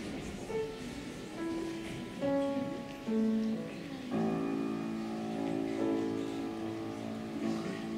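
Piano playing a slow introduction: single notes entering one after another, then fuller held chords from about four seconds in.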